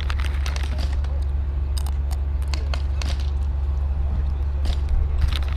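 Airsoft gas pistols and shotguns firing: a scattered, irregular run of sharp snaps, some in quick clusters, over a steady low hum.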